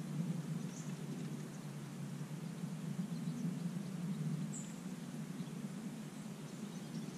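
Steady low background rumble of open-air noise, with a few faint, brief bird chirps over it.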